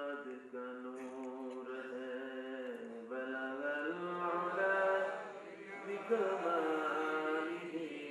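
A man's voice chanting melodically into microphones, in long held notes that slide slowly up and down.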